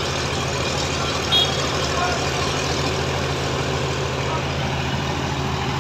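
Heavy diesel engines of lifting machines running steadily under load while hoisting a precast concrete girder, with a brief high beep about a second and a half in.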